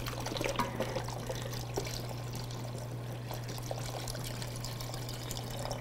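Chicken stock pouring in a steady stream from a carton into a saucepan of hot roux, with a wooden spoon stirring through it.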